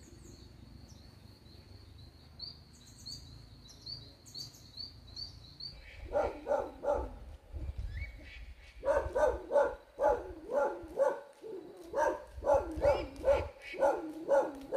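Faint, high, steady chirping, then from about six seconds in a run of short animal calls repeating about twice a second.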